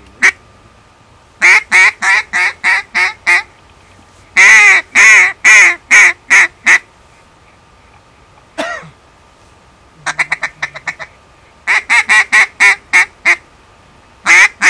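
A mouth-blown wind duck call sounded by a hunter, giving loud runs of five to seven rhythmic quacks separated by short pauses, the hen-duck calling used to lure ducks in. A fast run of short clucks sounds a little past two-thirds of the way in.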